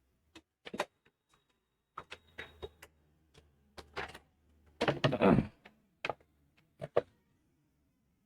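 A run of clicks and knocks from handling the wired-up refrigerator defrost timer test rig while it is connected to mains power, with a louder thump about five seconds in. A faint low hum is heard between about two and three seconds.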